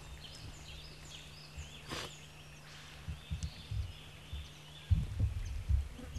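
Outdoor ambience with birds chirping intermittently over a steady high background hum, and irregular low rumbling thumps in the second half that are the loudest sound.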